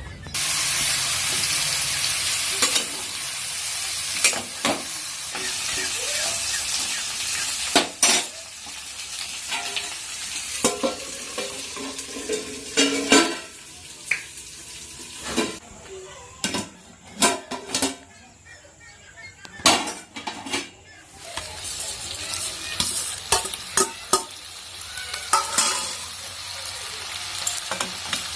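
Food sizzling in hot oil in a pan, the hiss starting suddenly and loud at the beginning, as if something has just been dropped in, then easing off before it builds again. A spatula knocks and scrapes against the pan many times as the food is stirred.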